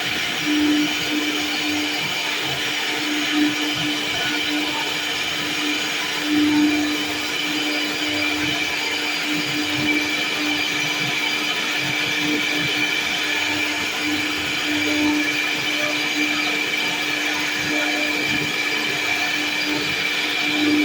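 CNC router spindle running steadily with a constant whine while the bit cuts into wood, with a few brief surges in the cutting noise.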